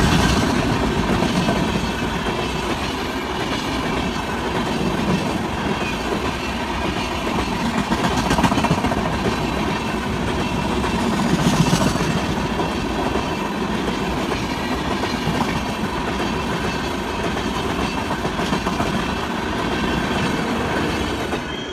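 Passenger coaches of an express train passing at speed: a steady rumble of wheels on rail with clickety-clack over the rail joints, swelling briefly about 8 and 12 seconds in.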